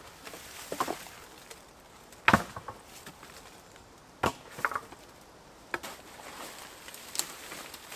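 Dead wooden poles, the shelter's old roof supports, knocking and clattering against each other as they are pulled out and stacked: a handful of sharp, irregular wooden knocks, the loudest about two seconds in.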